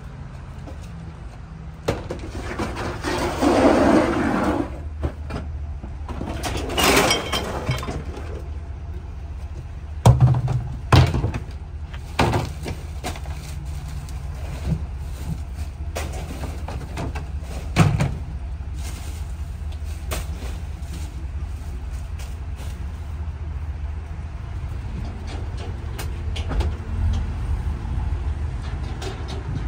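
Small Ford split-body recycling truck idling steadily while recyclables are emptied by hand into its side hopper: two clattering spills of about two seconds each in the first eight seconds, then a handful of sharp clunks.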